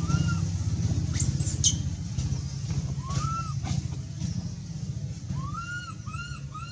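A baby monkey crying in short arching calls, about five of them, with one shrill high-pitched squeal a little over a second in. Under the cries runs the steady low drone of an engine running.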